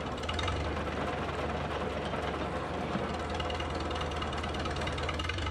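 Farmall Super A tractor engine running steadily, with a dense mechanical clatter over a low, even hum.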